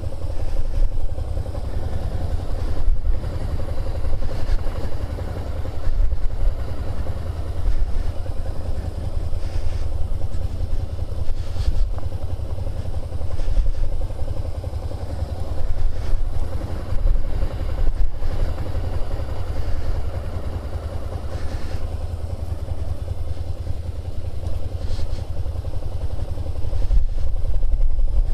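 Suzuki SFV650 Gladius 650 cc V-twin engine running at low speed through tight figure-eight turns, its loudness rising and falling every couple of seconds as the throttle is worked. The sound is picked up by a microphone inside the rider's helmet.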